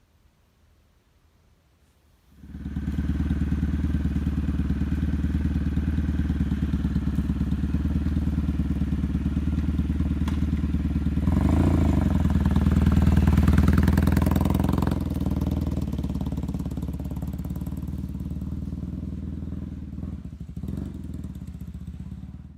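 Kawasaki W650 motorcycle's air-cooled parallel-twin engine starting up about two seconds in and running with a steady low beat. It gets louder around the middle, then eases off slightly before stopping abruptly at the end.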